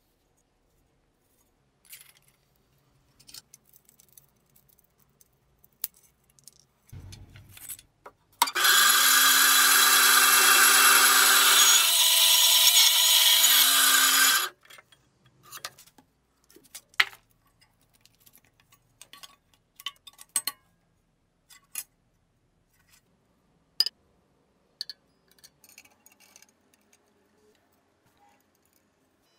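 Band saw running and cutting through an old wooden knife handle for about six seconds, a steady hum under a loud hiss of the blade in wood. Before and after it come scattered light clicks and knocks of the knife being handled.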